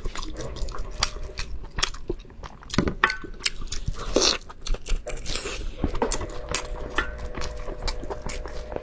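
Close-up crunching and chewing of crisp fried food: irregular sharp crackles of bites and chews.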